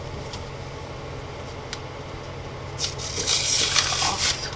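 Rustling as a T-shirt is handled and unfolded, a burst of about a second and a half near the end over a low steady hum.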